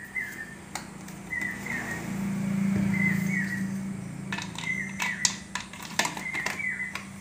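Plastic bottles handled and a trigger-spray head fitted onto a plastic bottle: a cluster of sharp clicks and knocks in the last few seconds. A small bird chirps a short falling two-note call about every second and a half in the background, and a low hum swells and fades in the middle.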